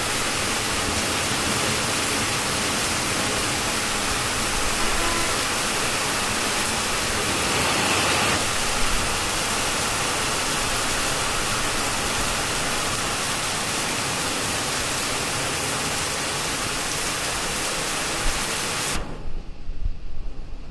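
Heavy rain pouring steadily onto leaves and ground, a dense even hiss. Near the end the hiss drops away and uneven low rumbling takes over, like wind buffeting the microphone.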